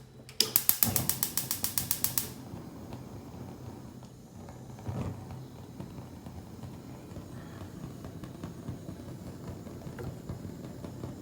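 Gas stove's electric igniter clicking rapidly, about eight clicks a second, then stopping about two seconds in. A low steady hum follows.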